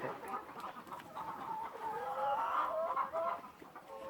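Chickens clucking, several birds calling over one another.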